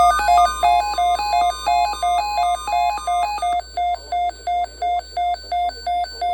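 NOAA Weather Radio's steady 1050 Hz warning alarm tone, cutting off about three seconds in, under rapid electronic alert beeping at about three beeps a second. The beeps alternate between two pitches at first, then repeat on one lower pitch.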